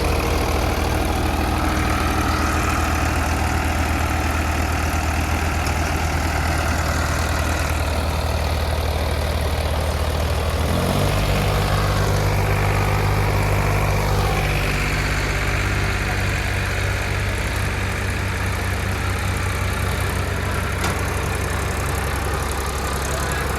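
Diesel engine of a JCB 3DX backhoe loader running steadily; about eleven seconds in its speed steps up a little and stays there, with a faint whine rising and falling around that point.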